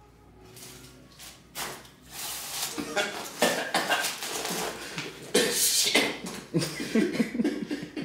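Two men laughing and chuckling in loud bursts, starting about three seconds in after a quiet opening.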